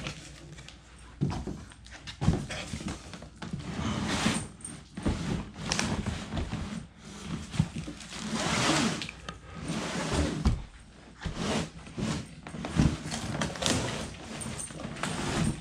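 Cardboard shipping box being handled and opened: flaps rustling and scraping, with irregular knocks and thumps.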